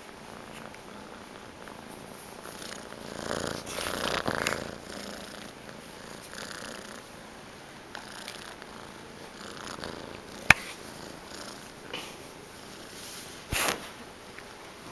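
Young gray tabby domestic shorthair kitten purring steadily close to the microphone. Louder rustling rises about three to five seconds in, a sharp click comes about ten and a half seconds in, and a short rustle follows near the end.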